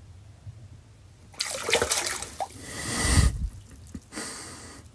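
Muskrat splashing in the water of an ice-fishing hole as it dives back under. A burst of sloshing water starts about a second and a half in and lasts about two seconds, followed by a shorter splash near the end.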